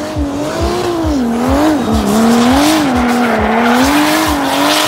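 Drift car engine revving up and down in quick swells as the car slides sideways, with tyre squeal and hiss from the spinning rear tyres. The engine pitch settles to a steadier note near the end.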